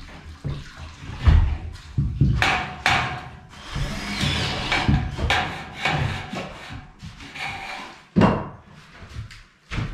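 Irregular knocks and clatter of thin metal drywall ceiling profiles being handled and fitted into the frame, a few of the sharper knocks ringing briefly.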